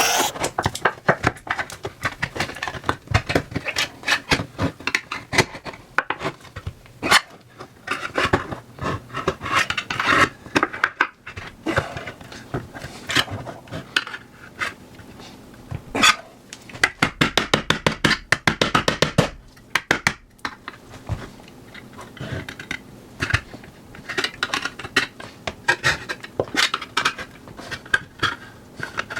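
Flathead screwdriver working a steel food tin's lid: a long series of sharp metallic clicks, taps and scrapes as the tip is jabbed into and levered around the lid, with a fast rattle of taps a little past the middle.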